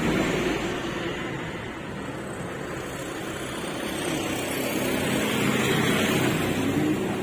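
A motor vehicle's engine running, dipping and then swelling louder again, with a short rise in pitch near the end.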